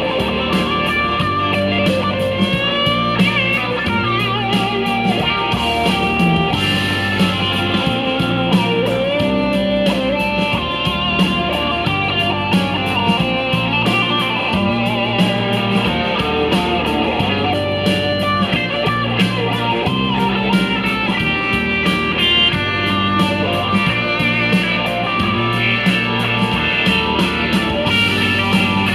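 Background music: an electric guitar blues-rock track with a steady, repeating bass line.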